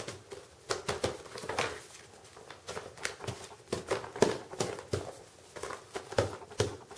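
Stiff kraft-paper envelope being handled: irregular rustling and crinkling of paper with scattered small taps and clicks.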